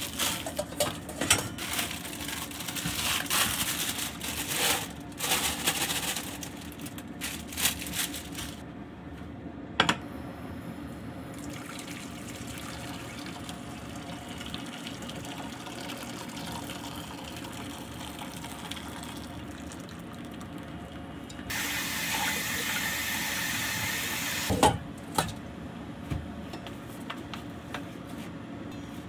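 Kitchen tap water splashing into a stainless steel sink, with clattering of a metal bowl and strainer in short bursts, then a steady run of tap water for about three seconds near the end, cut off by a knock.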